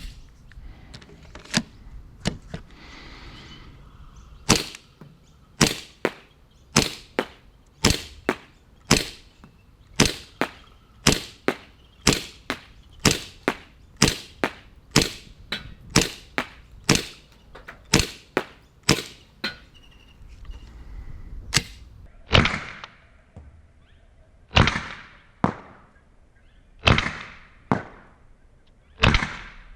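We-Tech IREX Hi-Capa gas blowback gel blaster pistol firing single shots on semi-auto, each a sharp pop with the slide cycling. The shots come steadily about once a second for some fifteen shots. After a short pause near the middle, four more follow about two seconds apart.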